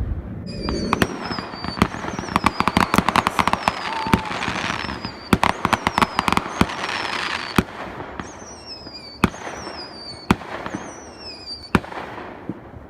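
Fireworks going off: dense strings of sharp bangs and crackles, with several whistles falling in pitch, then single separate bangs near the end.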